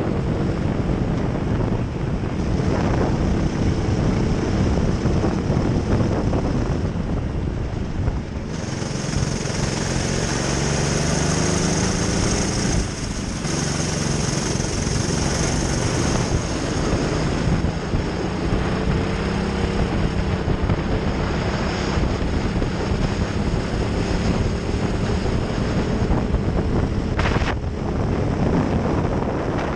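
Racing kart engine at full throttle, heard onboard, its pitch climbing along the straights and dropping as the kart slows for corners, most clearly about thirteen seconds in.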